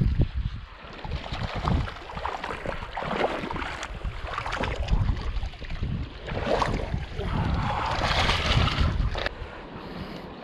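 Shallow river water splashing and sloshing as a trout is scooped into a landing net, in uneven bursts. Gusts of wind buffet the microphone with low rumbles.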